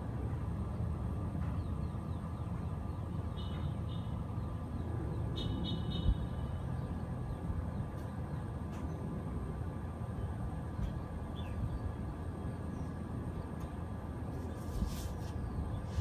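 Mitsubishi Heavy Industries split-type air conditioner outdoor unit running steadily: an even fan rush over a low hum with several steady tones, and no shutdown yet. A single thump about six seconds in.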